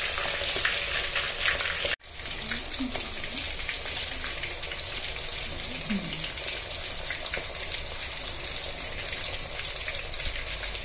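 Marinated quail pieces deep-frying in hot coconut oil in a wok, a steady sizzle of bubbling oil. It cuts out for an instant about two seconds in, then goes on as before.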